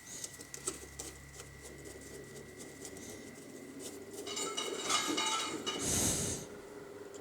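Hand tools working small bolts in the metal gearbox housing of an angle grinder: light clicks and taps, then from about four seconds in a louder metallic scraping and rattling that peaks near six seconds.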